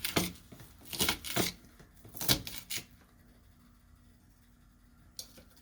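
A few brief clatters and scrapes of kitchen handling in the first three seconds, then quiet room tone with one small click near the end.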